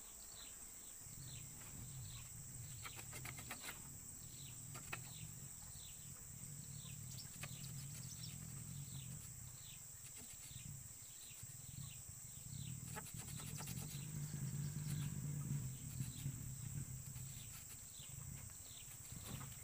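Outdoor tropical ambience: a steady high insect drone, with short falling chirps repeated about twice a second. A few light clicks of a machete blade working a bamboo fishing rod come through, over a low rumble that swells and fades.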